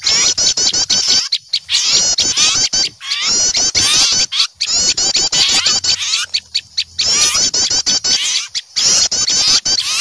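Many small birds calling at once in rapid, high chirps and short trills, in bursts with brief breaks. This is an agitated alarm and mobbing chorus of small birds scolding an owl, played as a bird-catching lure call.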